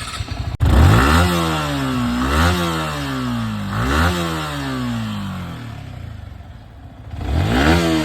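Yamaha R15 V3's 155 cc single-cylinder engine through its stock, unmodified exhaust, revved in four sharp throttle blips. Each blip rises quickly and falls back slowly toward idle. It is a fairly sporty sound.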